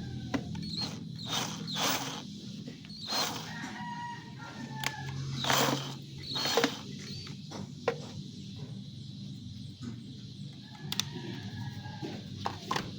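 A rooster crowing in the background, heard twice, with several short, noisy handling sounds in between, the loudest about five and a half and six and a half seconds in.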